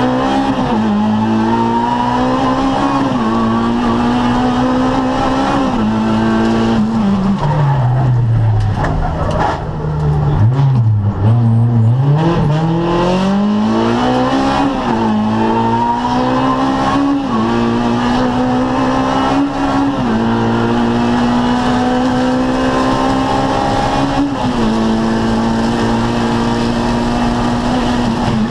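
Rally car's engine heard from inside the cockpit, pulling hard with the revs climbing and dropping back at each upshift. About seven seconds in the revs fall away through braking and downshifts, then the engine climbs back up through the gears.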